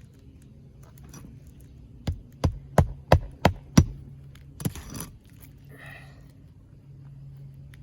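Hammer driving a roofing nail into a 3-tab asphalt shingle roof: six sharp blows in quick succession, about three a second, then a lighter knock with a short scrape about a second later.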